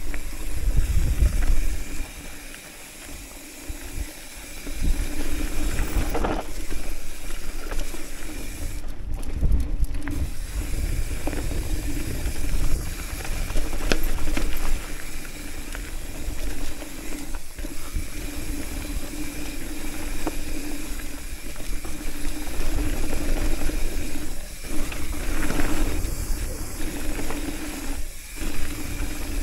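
Riding noise of a hardtail mountain bike going downhill on dirt singletrack: tyres rolling over packed dirt and loose stones, wind on the microphone and the bike rattling over bumps. It eases off for a couple of seconds early on, then runs loud again with a few sharper knocks.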